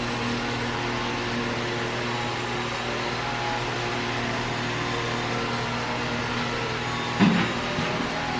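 Steady mechanical hum and hiss of a running machine, with one short knock about seven seconds in.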